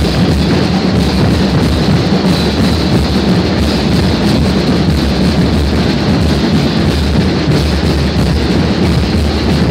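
Procession drums playing continuously, loud and steady.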